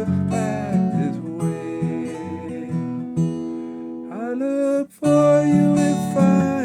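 Strummed acoustic guitar accompanying a singer holding out long notes, the last line of a slow folk song. The sound drops out briefly about five seconds in, then the guitar comes back.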